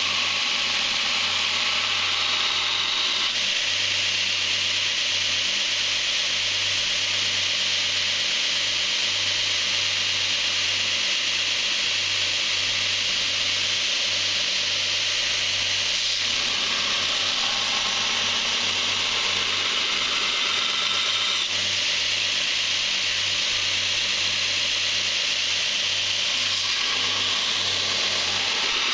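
Belt grinder running with a D2 tool-steel knife blade held against the belt: a steady grating hiss of steel being ground over the motor's low hum. The tone shifts several times as the blade's contact changes.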